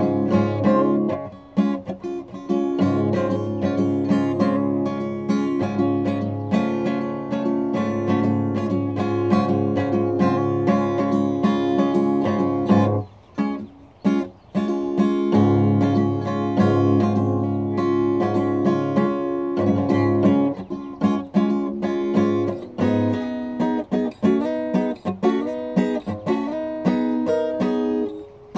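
Acoustic guitar strummed in a steady run of chords. There is a short break about halfway through, and the playing turns choppier, with shorter changing notes, toward the end.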